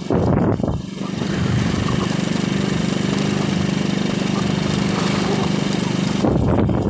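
A small engine runs steadily, heard from on board the vehicle being ridden, most likely a motorcycle. Wind buffets the microphone at the start and again near the end.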